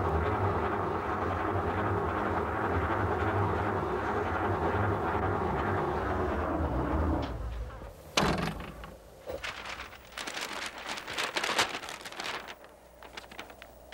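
An old car's engine running steadily, then stopping about seven seconds in. A single sharp knock follows, then the crackling of a large paper road map being unfolded.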